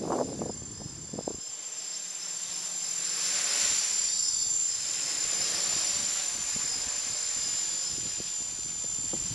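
Small electric quadcopter's motors and propellers whining steadily in flight, a rushing sound swelling as it passes close by about three to four seconds in, then holding steady as it flies farther off.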